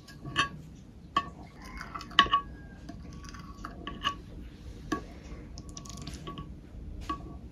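Kitchen knife cutting set gelatin into squares in a glass baking dish, the blade tip tapping against the glass bottom with each cut: about half a dozen sharp, irregular taps, some with a short ring.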